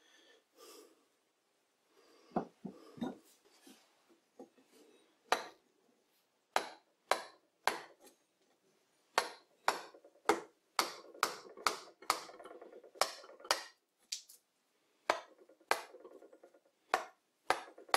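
A freshly turned green-oak wooden mallet knocking on wood about twenty times, each strike sharp with a brief ring. The strikes are sparse at first, then come about two a second through the middle and later part.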